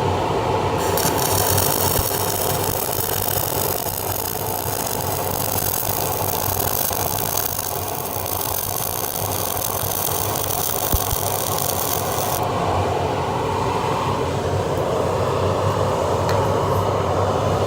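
Flux-core arc welding with 316L stainless steel wire: a steady crackling hiss from the welding arc starts about a second in and stops near 12 seconds, as the bead is laid. A fume extractor drones steadily underneath throughout.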